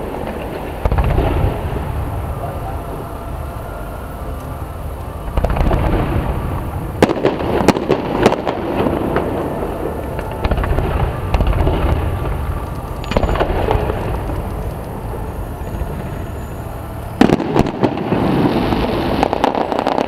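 Fireworks display: shells launching and going off with deep booms every few seconds, dense crackling around the middle, and a sharp bang near the end.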